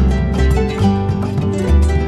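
Background music: quick plucked notes over a deep bass.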